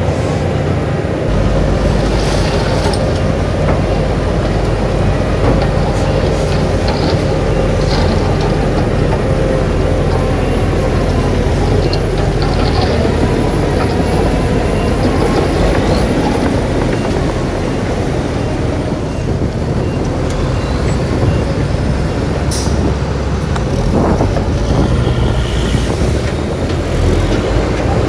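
Heavy diesel earthmoving machinery running steadily under load, with occasional short clicks and clanks over the engine rumble.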